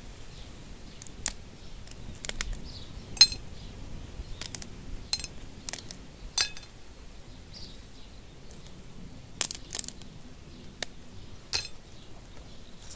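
About a dozen sharp clinks of kitchenware at irregular intervals, each with a brief ring, the loudest about three seconds in.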